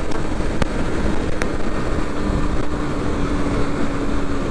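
Wind rushing over a helmet-mounted microphone at freeway speed, over the Kawasaki Ninja 250's parallel-twin engine droning steadily in a high gear, its note drifting slightly lower. Two faint clicks come in the first second and a half.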